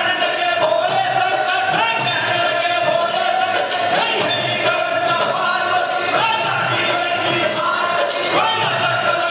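Live Jangam folk music: men singing a chant together over bells and cymbals that strike a steady beat, about two strokes a second.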